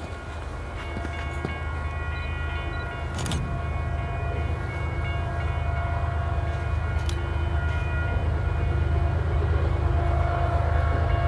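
Approaching diesel-hauled train: a low locomotive rumble growing steadily louder, with steady high tones over it.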